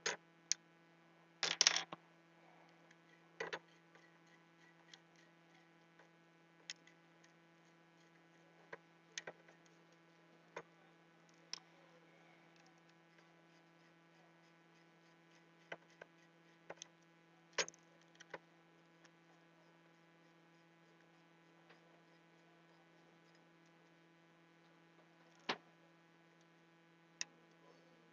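Scattered sharp clicks and clinks of a small screwdriver and a metal heatsink being handled as it is unscrewed from a graphics card, a cluster of them about a second and a half in, over a steady electrical hum.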